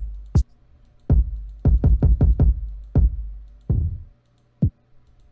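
Electronic kick drum one-shot samples previewed one after another: about ten separate short hits at uneven spacing, each with a deep low end and a short decaying tail, in a search for a lower-pitched kick.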